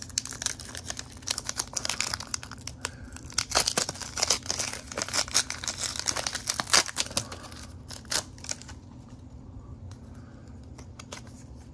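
Foil Pokémon booster pack wrapper crinkling and being torn open by hand: a dense run of crackles and rips that thins out after about eight seconds to a few light clicks as the cards are slid out.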